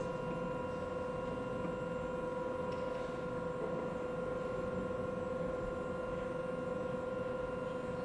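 Steady machine hum: one constant mid-pitched tone with fainter higher tones above it, over a low rumble, unchanging throughout.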